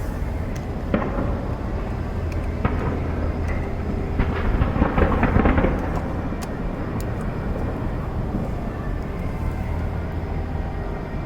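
Fireworks bursting overhead, scattered bangs over a continuous low rumble, with a rapid cluster of reports about four to six seconds in.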